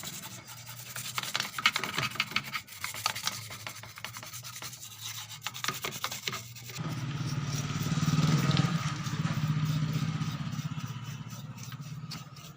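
Brush scrubbing an amplifier circuit board, a fast irregular scratching and rubbing. A little over halfway through it gives way to a steady motor hum that swells and then fades.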